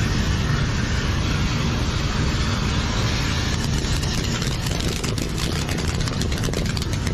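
Steady roar of aerosol insecticide spray burning as a jet of flame at the can's nozzle, with crackling that grows from about halfway through. The spray catches at once from the nearby firework, so it burns as an open flame instead of building up and exploding.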